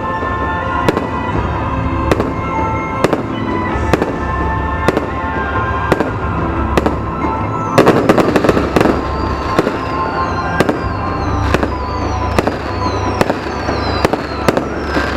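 Fireworks display bangs going off about once a second over music. About eight seconds in, a dense volley of crackling bursts, followed by a run of short falling whistles.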